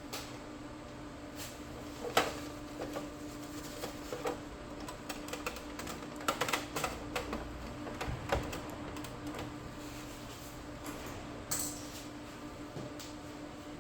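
Irregular small clicks and taps of hands working on an inkjet printer's ink-supply tubing and syringe, thickest in the middle, over a steady low hum.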